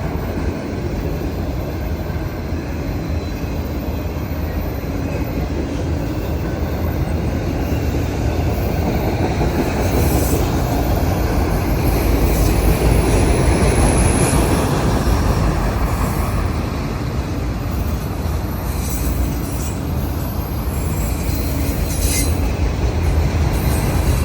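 CSX freight train rolling past: a steady, loud rumble and rattle of the passing cars, with brief high-pitched wheel squeals through the middle.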